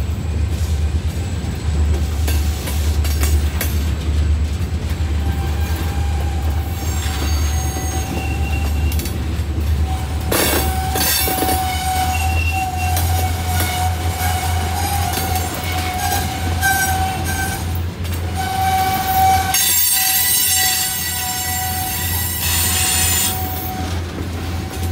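Freight train rolling by with a steady low rumble, its wheels squealing in high, wavering tones that are loudest about ten seconds in and again near the end.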